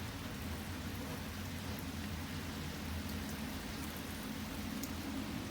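Typhoon wind and rain heard from inside a house: a steady rushing noise with a low wavering roar underneath and a few faint ticks of rain. The wind is blowing at around 30 metres per second.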